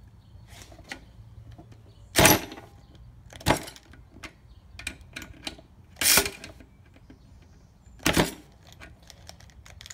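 Harbor Freight Earthquake XT 12V cordless ratchet triggered in four short bursts about two seconds apart, with faint clicks between. It stalls each time against a screw torqued to 60 foot-pounds and cannot break it loose.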